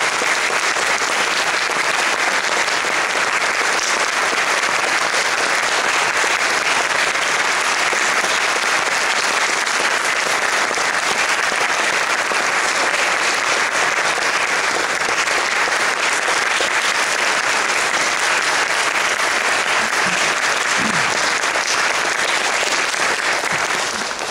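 Audience applauding, steady and sustained, starting to die away at the very end.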